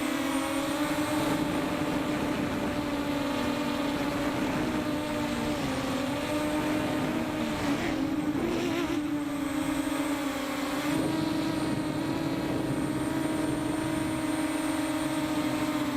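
Quadcopter drone's motors and propellers humming in flight, heard close up through the camera mounted on the drone. The pitch stays steady, wavers about halfway through and rises slightly a little later, as the throttle changes.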